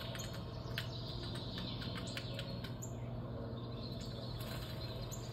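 Small birds chirping and twittering in quick, short notes from a bird-feeder nature video playing on a TV, heard over a steady low hum.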